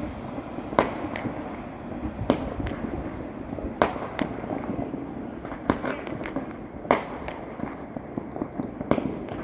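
Diwali fireworks going off: a string of sharp bangs and smaller pops at uneven intervals, roughly one every second or two, over a steady background noise.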